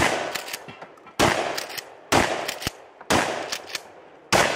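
Five gunshots about a second apart, each sharp crack followed by a fading echo, fired during a timed shooting-competition stage.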